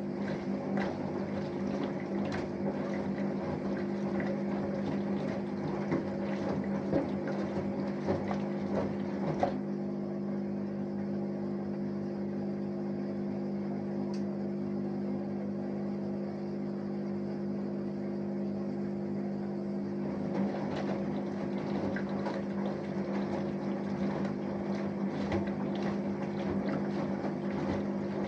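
Samsung Eco Bubble front-loading washing machine mid-wash: laundry and water slosh in the turning drum over a steady hum. The sloshing stops about ten seconds in and starts again about twenty seconds in, as the drum pauses between turns.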